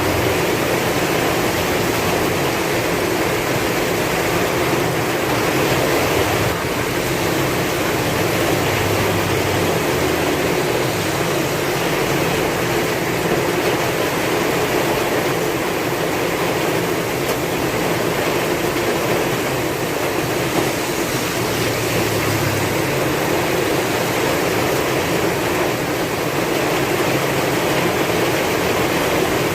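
Heavy rain falling in a steady, even downpour, with strong wind.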